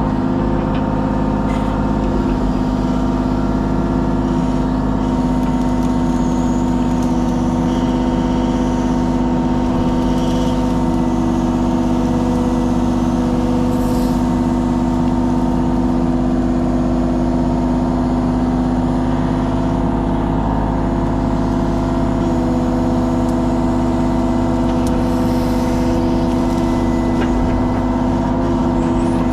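Kubota KX033 mini excavator's diesel engine running at a steady throttle, its pitch holding level throughout.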